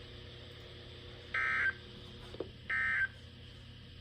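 EAS end-of-message data bursts (SAME digital header tones) over NOAA Weather Radio: two short, buzzy warbling bursts about 1.3 s apart, with a third starting right at the end, over faint radio static. They mark the end of the severe thunderstorm warning broadcast.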